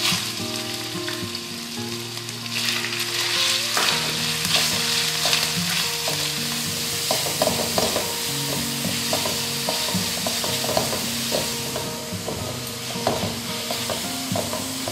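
Diced pork stir-frying in hot oil in a steel wok, sizzling throughout, stirred with a spatula that clicks and scrapes against the pan many times.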